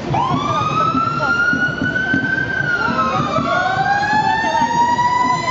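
Fire engine sirens winding up: one rises sharply at the start and keeps climbing slowly, and a second joins about three seconds in, rising in pitch as the first falls away, over a steady crowd murmur.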